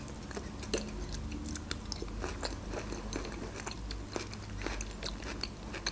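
A person chewing a mouthful of food close to the microphone: a run of small, irregular clicks, a few each second.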